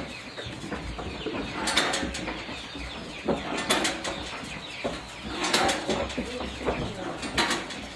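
Goats feeding at a metal headlock feed rack: scattered irregular knocks and rattles, with birds chirping and clucking among them.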